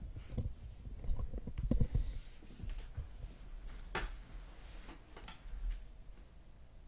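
Handling noise from boxes of trading cards: soft low knocks and thuds in the first couple of seconds, then a few sharp clicks about four and five seconds in.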